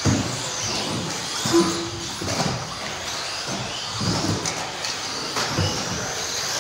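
Electric 1/10 RC buggies with 17.5-turn brushless motors whining around an indoor track, the pitch rising and falling as they speed up and brake. There are scattered low surges and one short beep about one and a half seconds in.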